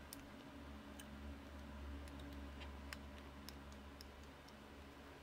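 Faint, scattered small clicks from hands handling a plastic utility knife and small leather wedges, over a steady low hum.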